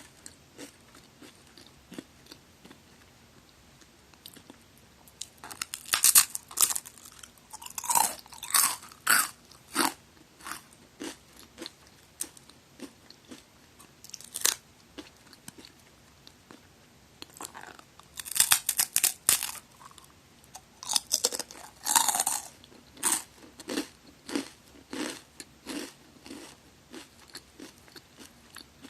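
Crunching and chewing of a magari senbei cracker, recorded close up: loud bursts of crunching bites a few seconds in and again past the middle, with softer, regular chewing crunches in between.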